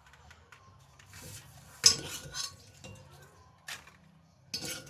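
Spoon and dishes clinking as food is portioned into small bowls: a few sharp clinks, the loudest about two seconds in.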